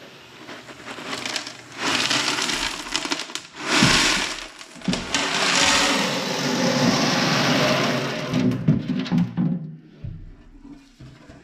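Expanded clay pebbles (LECA) being poured into a glass tank, a loose rattling rush that starts about two seconds in and dies away near the end.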